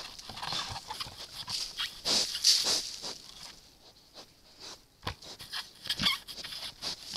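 Wild boar snuffling and rustling right against a trail camera, with sharp knocks on the housing as it noses it. The sniffing is loudest about two seconds in, drops away briefly, then the knocks come near the end.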